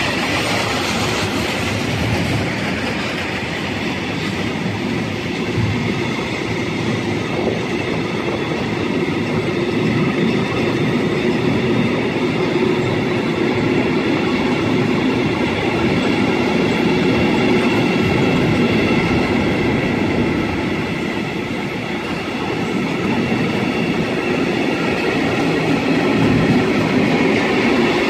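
Freight wagons rolling past close by: tank cars, then sliding-wall wagons. Their steel wheels run steadily over the rails in a continuous loud rumble.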